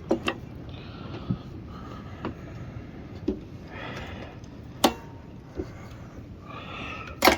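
Scattered sharp clicks and taps of small metal parts being handled on a lawn mower engine's carburettor linkage, the loudest two near the middle and at the end, with a few soft breaths between them.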